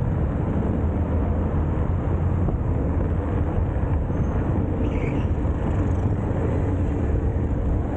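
Steady road noise: a BMX bike rolling along a city street among car traffic.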